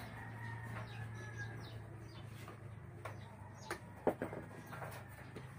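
A few light knocks and taps, about three to four and a half seconds in, as hands work a green plastic mold loose from a cement flower pot. Under them is a low steady hum, with faint bird chirps.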